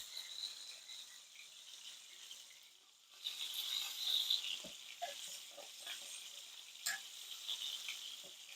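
Two thin seasoned chicken breasts searing in hot olive oil in a pan, a faint steady sizzle that grows louder about three seconds in, with a couple of light clicks.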